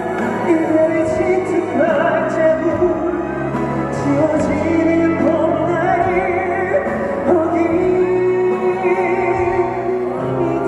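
Live concert performance of a song: band accompaniment under a high voice holding long notes with vibrato.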